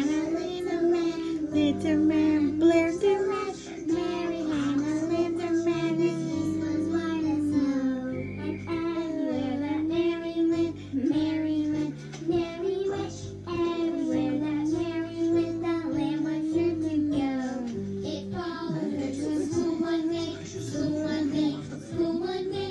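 A children's nursery-rhyme song: a child-like singing voice carrying a melody over a steady backing track.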